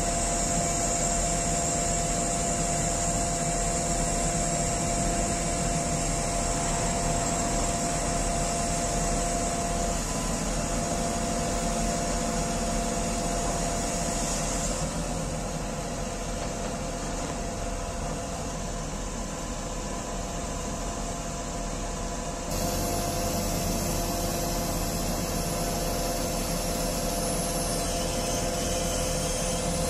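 XCMG QY25K5A truck crane running steadily while its boom is raised and telescoped out: a constant mechanical hum with a few held tones. About three-quarters of the way through it shifts to a louder, heavier low rumble.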